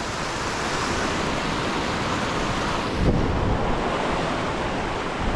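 Steady rushing noise of flowing creek water, with a brief low rumble about three seconds in.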